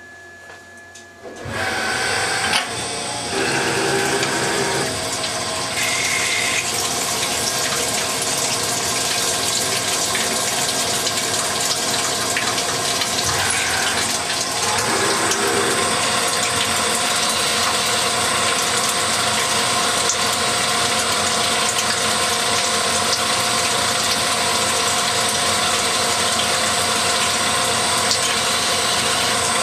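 Hardinge HXL CNC lathe running a turning job on steel, its spindle and drive running with a steady rush of cutting coolant splashing over the work. The machine noise starts about a second and a half in, with short pitched whines now and then.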